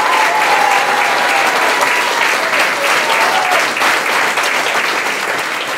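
Audience applauding, a dense steady clatter of clapping, with a few held cheering voices over it in the first half.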